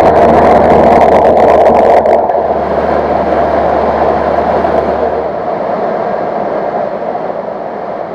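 Cessna 150's Continental O-200 engine and propeller in flight with airflow noise, a loud steady drone. The low hum drops out about halfway through and the drone eases a little after that.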